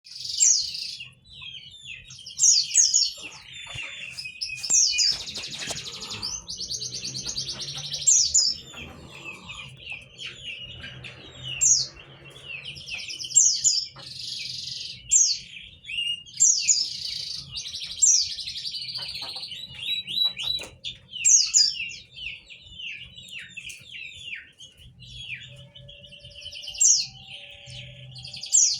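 White-eye (pleci) singing a long, fast twittering song of rapid high chirps, with loud bursts every second or two.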